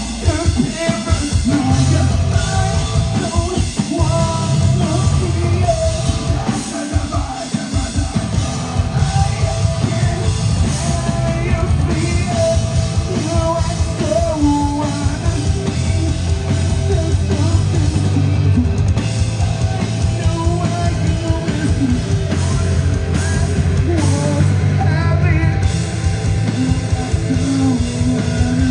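A live heavy rock band playing loud, with electric guitar and a drum kit under sung and yelled vocals.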